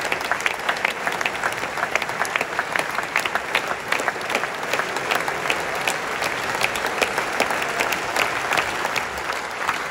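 Concert-hall audience applauding: many hands clapping densely and steadily, with no let-up.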